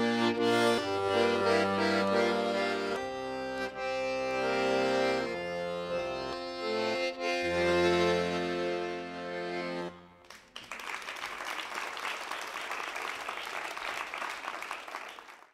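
Piano accordion playing a tune with held chords and bass notes, which ends about ten seconds in; then an audience applauds steadily.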